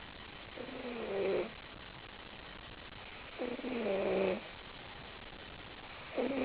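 Snoring: slow, regular snores of about a second each on the breath, with a buzzing tone that drops slightly in pitch. Two full snores are heard, and a third starts near the end.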